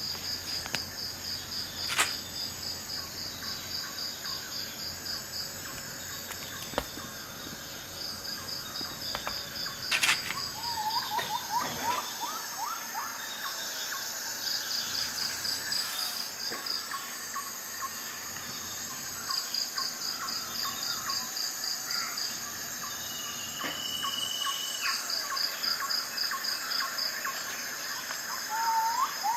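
Chorus of chirping insects: trains of rapid high pulses every few seconds over a steady high hiss, with a few short rising calls and occasional sharp clicks.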